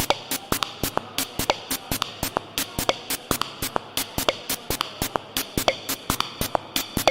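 Eurorack modular synthesizer playing a fast electronic percussion pattern: sharp clicks about six or seven a second, with short pitched blips that drop in pitch.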